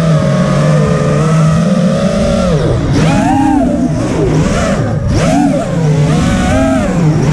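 Mini FPV quadcopter's brushless motors and propellers whining loudly. Steady at first, then swooping rapidly up and down in pitch with throttle changes for several seconds, then steady again near the end.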